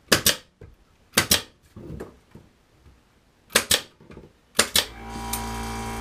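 Pneumatic 23-gauge pin nailer firing stainless headless pins into wooden planking: four sharp shots at uneven intervals, each a quick double clack. A steady machine hum starts about five seconds in.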